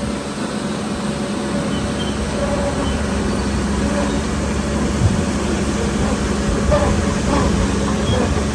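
Heavy diesel earthmoving machinery running steadily with a low hum, growing slightly louder, with a few faint short squeaks.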